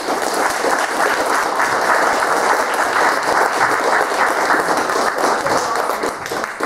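Audience applauding: many people clapping at once, swelling as it begins and then holding steady.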